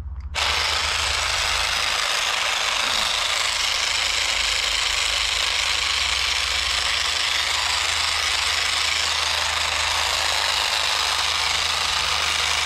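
Cordless grass and shrub shears switched on abruptly just after the start, then running steadily with a loud, even noise while trimming plants.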